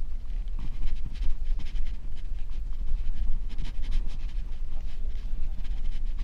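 Wind buffeting the microphone of a camera worn by a cyclist riding along, a steady low rumble, with the rider's breathing hissing over it in irregular puffs.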